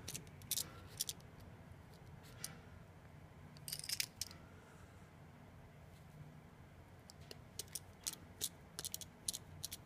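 Faint, scattered sharp clicks and ticks of a small screwdriver and tiny screws on the iPhone 6's metal plate as the screws are driven back in. A cluster comes about four seconds in, and a run of quick ticks near the end.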